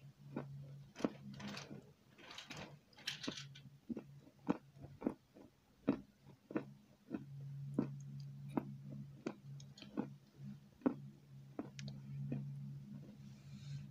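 Close-miked chewing with the mouth closed: soft wet mouth clicks about twice a second, with a breathy swallow or exhale about two to three seconds in.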